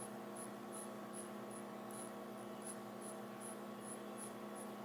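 Steady electrical mains hum, with faint, evenly spaced high ticks about two and a half times a second.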